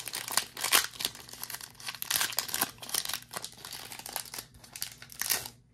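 Foil wrapper of a Pokémon booster pack crinkling as it is torn open by hand, a dense run of sharp crackles that stops near the end.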